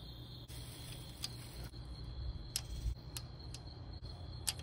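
Five sharp, irregularly spaced metal clicks as rocker arms are set onto the lifters of an engine's cylinder head, over a steady high trill of crickets.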